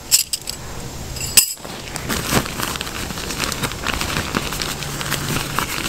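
Tent stakes clinking, with a sharp clack about a second and a half in as they are set down. Then the rustle and crinkle of a nylon stuff sack being handled and opened.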